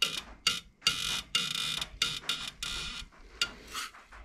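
Socket ratchet undoing the main case bolts of a Subaru engine block: a series of sharp ratcheting clicks, with longer runs of rapid clicking in the middle.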